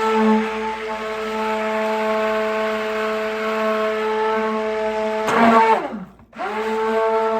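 Stick (immersion) blender mixing soap batter to trace, running at a steady whine. About five seconds in it is switched off and winds down in pitch, then is switched back on and spins up again a second later.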